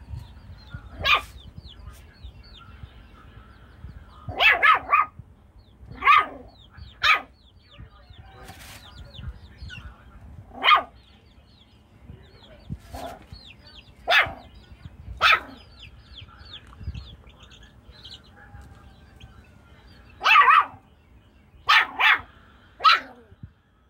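A Jack Russell–Chihuahua cross puppy barking in short bursts, about ten barks, some coming in quick pairs or threes. Young chicks peep faintly and rapidly between the barks.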